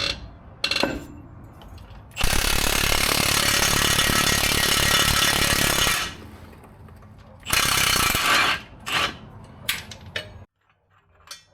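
Impact wrench running on a truck's suspension bolt: one long burst of about four seconds, then a shorter burst of about a second, with metallic clicks and clinks of tools and parts between.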